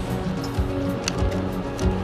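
Background music: held tones under sharp, crisp percussion hits.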